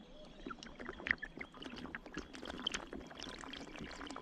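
Water splashing and dripping around a kayak, with many small clicks and light knocks.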